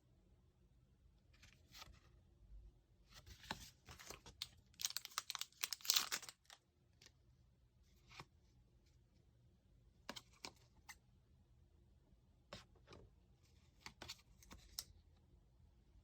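Packaging being torn open and crinkled by hand during a parcel unboxing: a few seconds of tearing and rustling, loudest about five to six seconds in, followed by scattered small rustles and clicks as items are handled.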